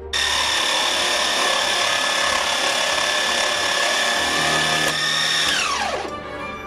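Electric scroll saw running while it cuts plywood: a loud, steady high motor whine with the rasp of the blade. It starts abruptly, and about five and a half seconds in the pitch falls steeply as the saw slows to a stop.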